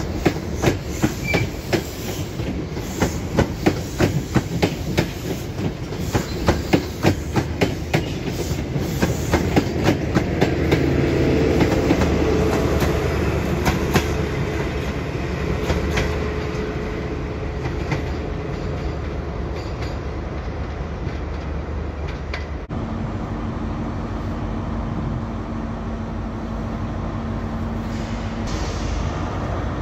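A diesel HST passing at speed: its wheels click rapidly and regularly over rail joints as the Mark 3 coaches go by, then the Class 43 power car's diesel engine swells in as it passes, about halfway through. After an abrupt change near the end, a steady diesel hum with a held tone from a Class 43 power car standing at a platform.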